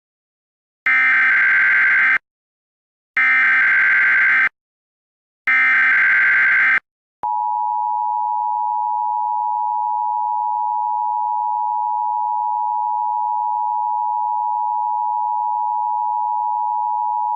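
Emergency Alert System tones: three identical screeching digital data bursts of the SAME header, each over a second long. Then, about seven seconds in, the steady two-tone attention signal begins and holds.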